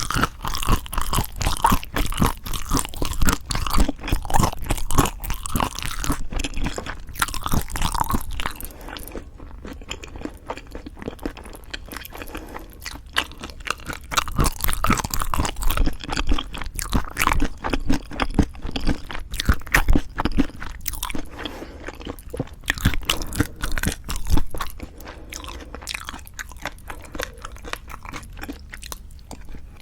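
Close-miked chewing and crunching of food, a dense run of crackly bites and mouth sounds that goes softer for a few seconds around a third of the way in and again near the end.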